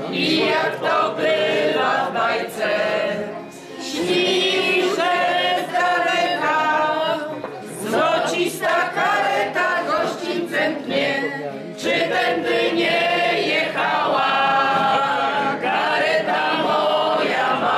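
A group of people singing a song together, phrase by phrase, with short pauses between the lines.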